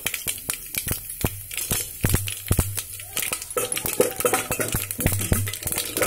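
Tempering spices (mustard seeds, cumin, urad dal and curry leaves) spluttering in hot oil in a steel pot: a dense, irregular run of sharp pops and crackles, the sign that the oil is hot enough and the tempering is frying well.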